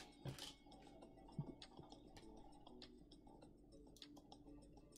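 Faint, scattered clicks of small plastic LEGO pieces being picked from a table and pressed together by hand, a little louder in the first half-second.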